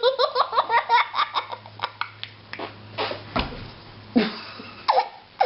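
Quick bursts of laughter, then playful wet mouth noises imitating food going down to the tummy, with a low thump partway through and short sliding vocal sounds near the end.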